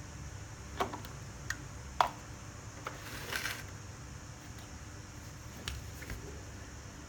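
Scattered light clicks and knocks with a short scrape, hand tools working on the plastic case of a cordless drill battery pack as it is pried open; the sharpest knock comes about two seconds in and the scrape about a second later. A low steady hum runs underneath.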